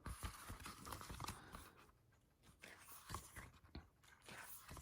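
Faint rustling and crinkling of glossy paper pages being handled and turned in a hardback book, in three short spells of small clicks and rustle.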